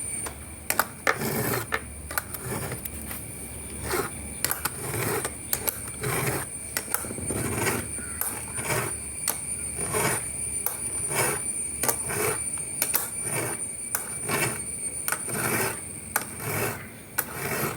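A file rasping across the cutter teeth of a chainsaw chain, held in a filing guide, in repeated one-way sharpening strokes about one a second.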